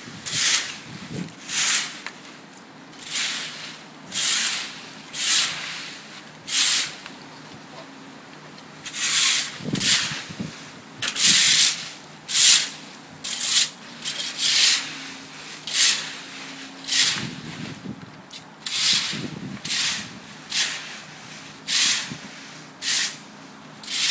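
Leaf rake scraping wet leaves and debris across a brick patio in repeated strokes, about one a second, with a short pause about a third of the way in.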